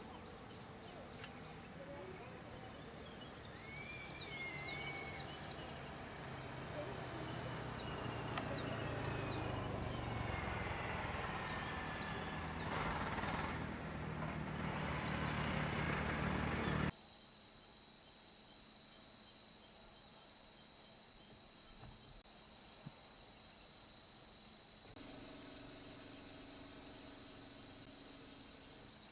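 Insects trilling steadily, with short bird chirps and a low rumble that grows louder. About 17 seconds in it all cuts off suddenly, and a quieter insect chorus follows, with steady high trills, one of them pulsing.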